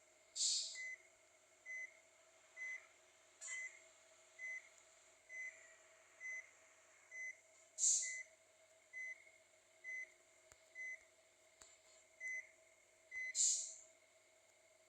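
An electronic beeper gives a short high beep about once a second, steady and even. Three short hissing bursts come near the start, about halfway through and near the end.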